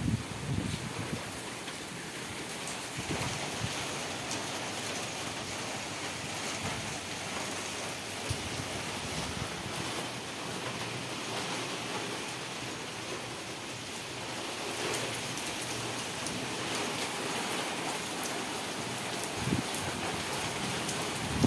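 Steady rain falling: an even hiss with scattered ticks of drops.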